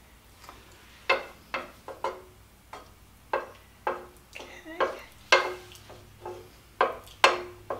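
Wooden spoon knocking against a black cooking pot while stirring melting butter: about fifteen sharp knocks, roughly two a second and unevenly spaced, each with a brief metallic ring from the pot. A real racket.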